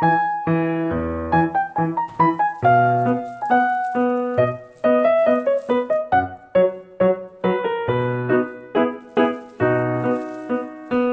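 Background piano music: a steady run of short melody notes over lower sustained notes.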